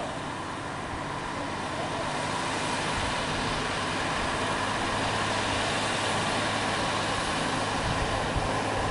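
Heavy MAN TGS trucks' diesel engines running steadily under load as the loaded trucks climb, growing louder over the first few seconds as they come closer.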